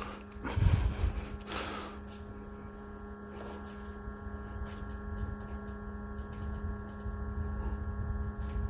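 Small personal evaporative air cooler's fan motor running with a steady hum and a low rumble of airflow, with a couple of brief knocks about a second in.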